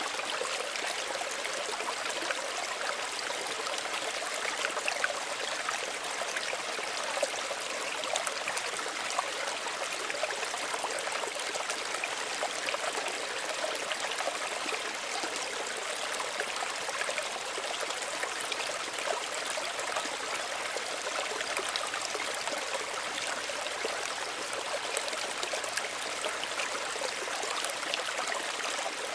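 Small stream running steadily over stones, a continuous gentle rush of water with small splashes and trickles scattered through it.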